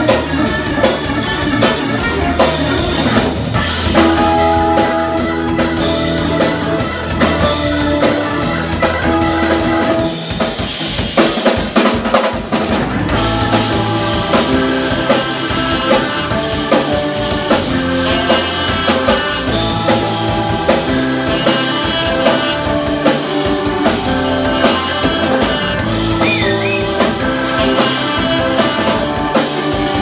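Live instrumental band playing with organ, electric guitar, saxophone and drum kit. The low end drops out for a couple of seconds about ten seconds in, then the groove resumes.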